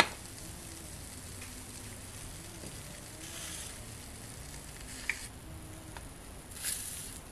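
Quiet, steady sizzling of shrimp, scallops and calamari and the water they have released on the still-hot plate of a Dash Mini Griddle, unplugged but still steaming. A sharp click right at the start and a few lighter taps later come as the pieces are lifted off.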